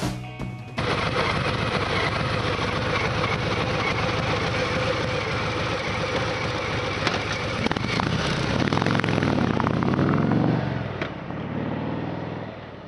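2018 Harley-Davidson Sport Glide's Milwaukee-Eight 107 V-twin running on its stock exhaust. It idles steadily, is revved up and back down about nine to eleven seconds in, then runs quieter near the end.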